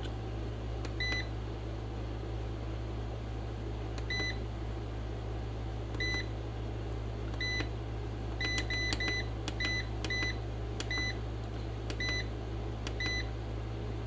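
MPP Solar LV2424 hybrid inverter's keypad beeping: about a dozen short, high, single-pitch beeps as its display buttons are pressed to page through readings, several in quick succession a little past the middle, over a steady low hum.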